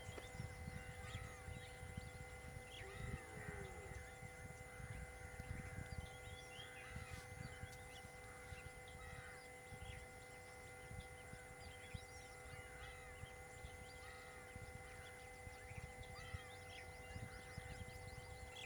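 Faint outdoor ambience: many short chirping calls, likely small birds, scattered throughout over an irregular low rumble, with steady faint electronic tones underneath.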